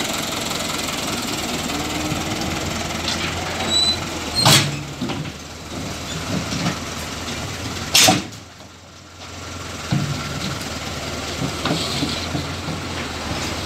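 Fiat 70-56 tractor's diesel engine running steadily as the front loader moves. There are two sharp knocks, about four and a half and eight seconds in, and the engine sound briefly drops away after the second.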